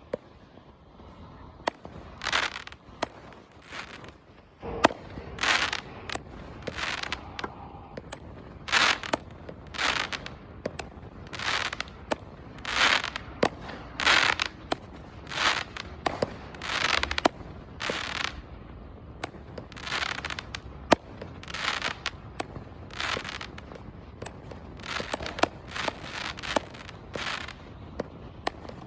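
Brothers Pyrotechnics Suspended Animation 25-shot firework cake firing: a run of shots, each a sharp report followed by a short noisy burst, about one a second, coming faster near the end.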